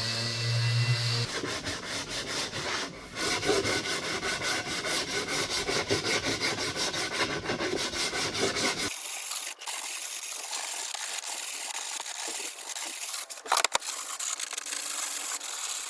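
Wood being sanded by hand, sandpaper rasping in quick, regular back-and-forth strokes. About nine seconds in the sound becomes thinner and a little quieter, with a couple of sharp knocks near the end.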